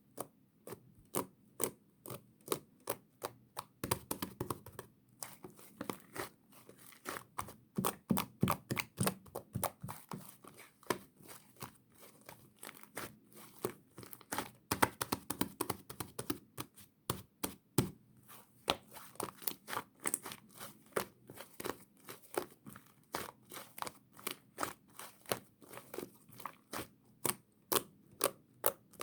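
Sticky, fluffy slime being pressed, poked and pulled by hand, giving a steady run of sharp sticky pops and clicks, several a second.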